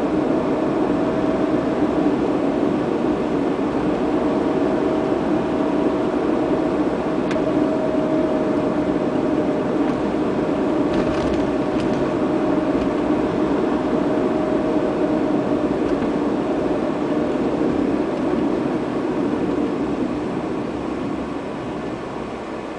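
Steady engine and road noise heard inside a moving car's cabin, with a faint steady whine. It grows quieter over the last few seconds as the car slows behind traffic.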